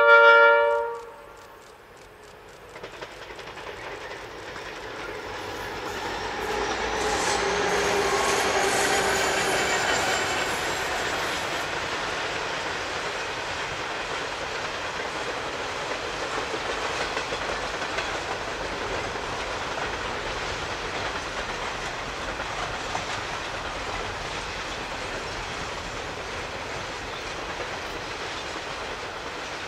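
Container freight train's horn sounds once, briefly, at the very start. The locomotive then approaches and passes, loudest about eight to ten seconds in, followed by the steady rolling noise and clickety-clack of the container wagons going by.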